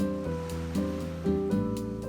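Gentle instrumental background music, with new notes or chords struck about twice a second.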